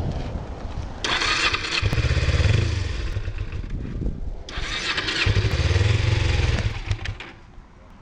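Kawasaki Ninja 250R's parallel-twin engine is started twice, each time catching and running up for a couple of seconds. It cuts out about seven seconds in: the bike stalls and won't hold an idle.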